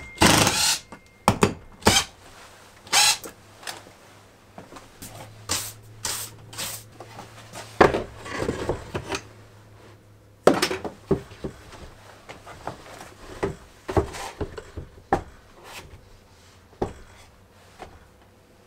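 Irregular wooden knocks and clunks as a plywood holder is hung on a French cleat on the wall and a random orbital sander is set into it. A short burst at the very start comes from a cordless drill-driver.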